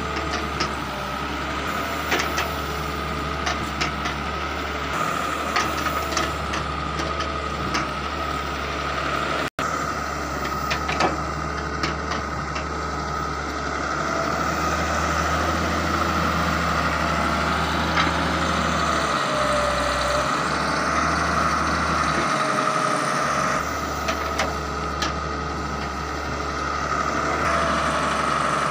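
Diesel engine of a Daewoo wheeled excavator running steadily with a high whine over it. Clanks and rattles of soil and broken brick come thickest in the first third, while the bucket dumps and works.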